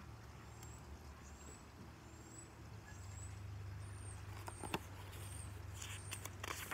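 Paper-back picture book being handled and its page turned: a few crisp clicks and rustles about four and a half seconds in and again near the end. Under it, a low steady rumble and a bird's short high chirps repeating about once a second.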